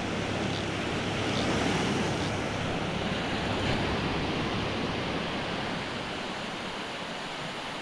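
Surf breaking on the beach: a steady rush of waves that swells a little about two seconds in and eases toward the end.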